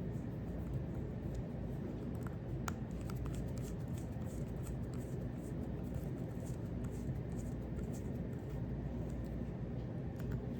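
Faint clicks and light scraping of a small driver working the screws of a Buck Spitfire folding knife as they are tightened, with one sharper click a little under three seconds in. A steady low background hum lies underneath.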